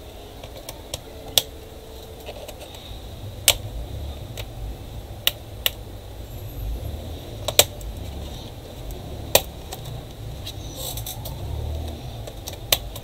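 A hand screwdriver removing the screws from a Dell Inspiron 15R-5521 laptop's plastic bottom cover. Sharp clicks and taps of tool and screws on the case come every second or two, over a low rumble of hands handling the laptop.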